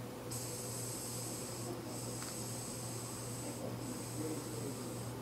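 Air hissing out of a BMX tyre's inner-tube valve in three long spurts with short breaks, as the last air is let out of the flat tyre. A low steady hum runs underneath.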